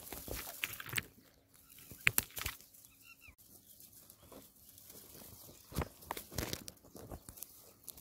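Dry grass stems rustling and crackling in irregular sharp bursts as they are pushed aside close to the microphone, with a faint short chirp about three seconds in.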